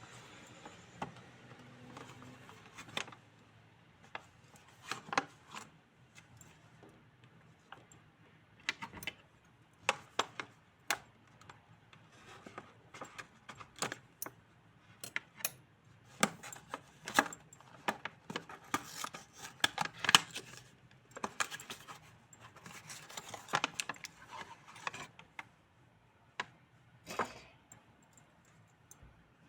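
Doll packaging being handled and opened by hand: scattered small clicks, taps and rustles, sparse at first, busiest in the middle, then tailing off near the end.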